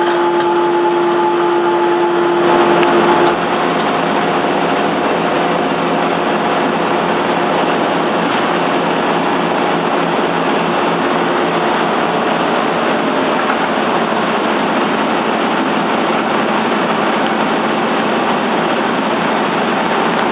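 Toyoda CNC lathe running with its spindle spinning: a loud, steady machine noise. About two and a half seconds in there is a brief louder burst with a few sharp clicks, typical of the turret indexing for a tool change, after which the steady hum drops out and the machine noise goes on evenly.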